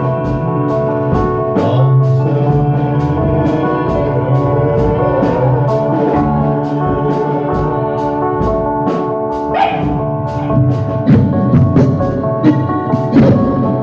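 Band music: sustained chords over a drum kit keeping time with a steady cymbal tick, with heavier drum hits near the end.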